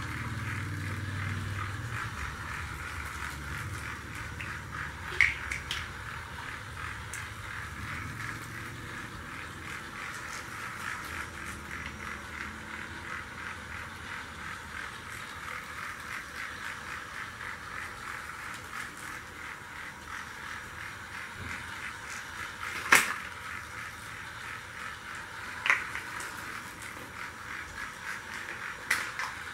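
Battery-powered toy train running on its track: a steady motor whir with rapid, even clicking, and a few sharper clicks now and then.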